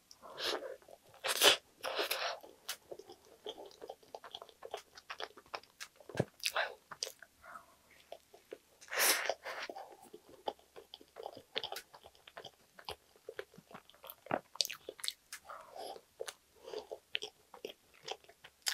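Close-miked eating of soft-bread sandwiches: bites and chewing with many small sticky mouth clicks. The loudest bites come about a second and a half, two seconds and nine seconds in.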